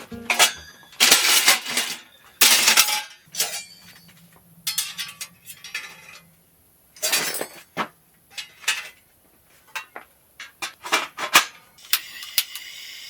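Cookware and dishes being handled: a series of separate clinks, knocks and scrapes of metal and glassware. About twelve seconds in, a steady hiss starts and keeps going.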